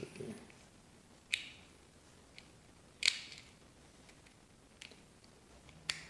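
Metal clicks from a door knob's latch assembly being worked by hand, its spindle and cams snapping against the latch mechanism. There are a few sharp clicks, the loudest about three seconds in, with softer ticks between.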